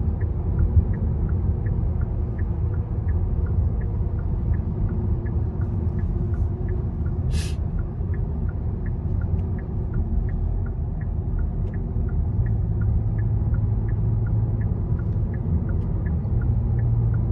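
Car cabin rumble from the engine and tyres while driving, with a turn-signal indicator ticking steadily throughout, an alternating tick and tock about two clicks a second. A brief high hiss comes about seven seconds in.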